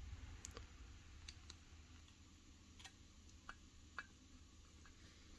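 A few faint, sharp clicks of a hex driver and small tools on metal as the gas block's set screws are driven back in after Loctite, over near silence; the two clearest come about three and a half and four seconds in.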